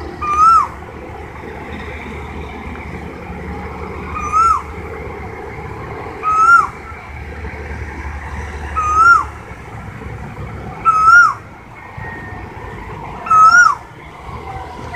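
Asian koel calling: six loud whistled calls, each rising then dropping sharply, repeated about every two seconds over steady background noise.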